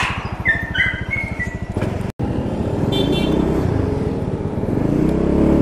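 Motorcycle engine idling with an even low pulse, then a momentary break about two seconds in. After the break it runs steadier, and its pitch climbs near the end as the bike pulls away.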